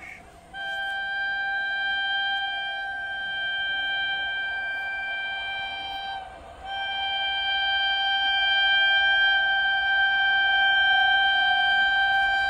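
WAP-7 electric locomotive's air horn sounding long, steady blasts as the train approaches, with short breaks just after the start and about six seconds in.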